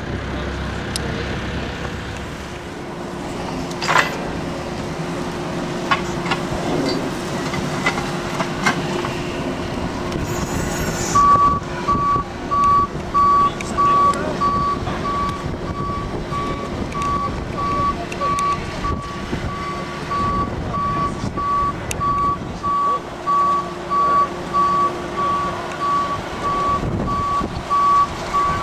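Forklift reversing alarm beeping about once a second, over the forklift's steady engine hum. The beeping starts about a third of the way in.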